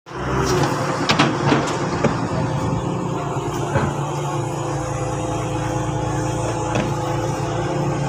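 Tracked hydraulic excavator's diesel engine running steadily under load as it swings and dumps soil, with a few sharp knocks between one and two seconds in.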